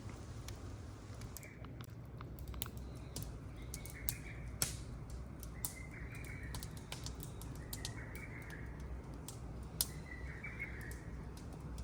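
Wood fire crackling with irregular sharp pops and snaps over a low steady rumble. A short animal call repeats about every two seconds in the background.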